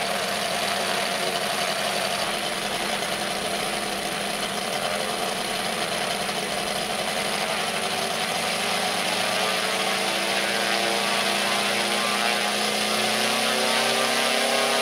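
Evolution E777 77cc seven-cylinder radial model-aircraft engine running with its propeller turning, a steady run whose pitch slowly climbs over the second half as the engine speeds up.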